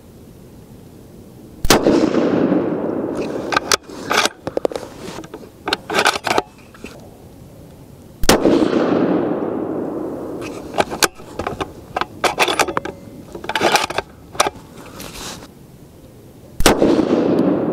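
Three shots from a Remington 700 bolt-action rifle in .30-06, about seven seconds apart, the last near the end, each dying away over a couple of seconds. Between shots, the bolt is worked with runs of short metallic clicks.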